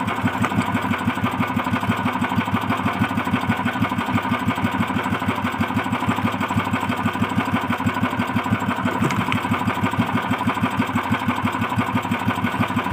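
Small outrigger-boat engine running steadily at idle, a fast even chugging pulse.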